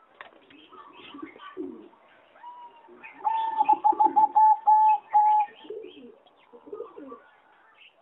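Zebra dove singing: a quick run of about eight short, clipped cooing notes lasting a little over two seconds, the loudest thing here. Scattered lower coos and small chirps from other birds come before and after it.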